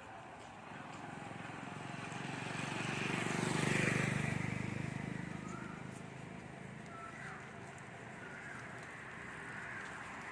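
A motor vehicle passing by, growing louder to its nearest point about four seconds in and then fading away, with short bird chirps now and then.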